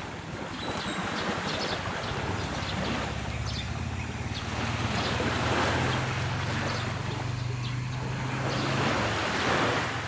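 Sea waves washing onto the shore in slow swells, with wind on the microphone. A low, steady engine hum comes in about two seconds in and fades near the end.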